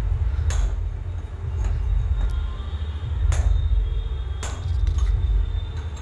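Steel chisel knocked against the stuck brass cartridge nut of a concealed push-type flush valve: several sharp metallic knocks, roughly a second apart, the loudest about half a second in and near the three- and four-and-a-half-second marks. The nut would not turn with a box spanner and is being knocked loose.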